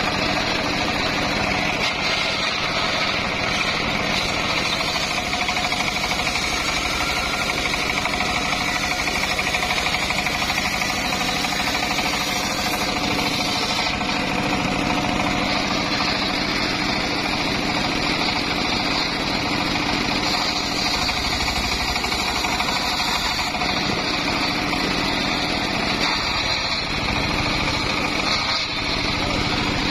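Homemade circular sawmill's large blade ripping an old mahogany log lengthwise, its driving engine running steadily under load beneath the blade's whine through the wood.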